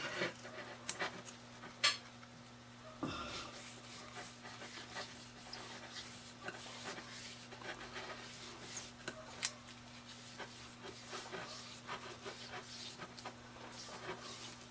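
Faint, irregular rubbing of a cloth wiping finish onto a small wooden bat, with a few light clicks from handling, over a steady low hum.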